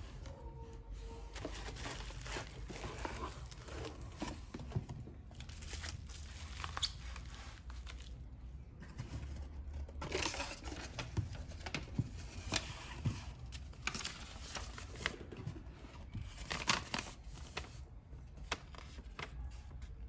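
Cardboard shipping box and bubble wrap being handled: crinkling plastic, rustling, and scattered light knocks of cardboard. Paper rustles near the end as a printed receipt is unfolded.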